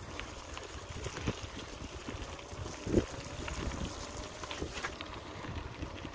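Wind buffeting the microphone and the bicycle's tyres rumbling over a rough dirt path, with scattered clicks and rattles and a sharp knock about three seconds in.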